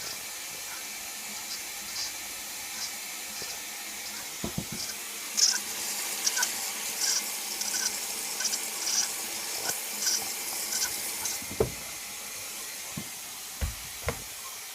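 Indesit 860B washing machine taking in water: a steady rush of water into the drum, with short splashes through the middle and a few dull knocks in the second half.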